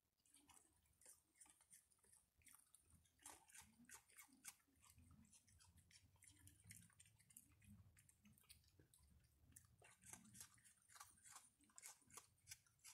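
Faint chewing and crunching from an opossum and a raccoon eating, a steady run of small crisp crunches that grows busier about three seconds in.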